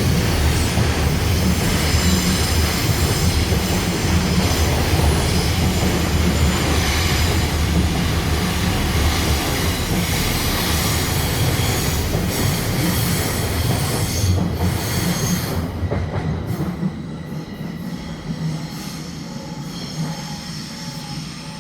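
Electric commuter train passing close by on the rails, a heavy rumble of wheels with a thin high squeal. It dies away about three-quarters of the way through, leaving a quieter tail with a faint repeating tone.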